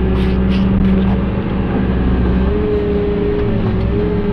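Excavator's diesel engine and hydraulics running under load, heard from inside the cab as the machine swings. A steady low tone in the running sound steps up to a higher one about halfway through.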